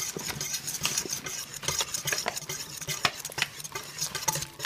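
Stirring flour into a wet yeast-and-sugar mixture in a bowl: irregular scraping and knocking of the stirring utensil against the bowl, with quick clicks throughout.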